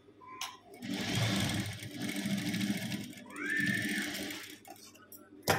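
Industrial lockstitch sewing machine running in two bursts of a second or two each, stitching a zip onto a cloth handbag. A single sharp click comes near the end.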